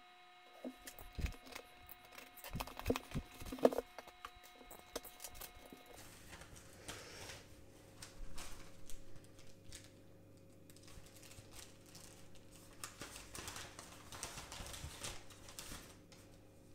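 Cardboard box and tissue paper being handled: a few soft taps and clicks in the first seconds, then faint rustling and crinkling of the paper wrapping, in several short bursts.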